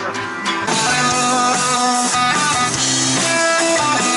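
Rock music with strummed guitars and a drum kit, an instrumental stretch between sung lines; it thins briefly at the start, then the full band comes back in.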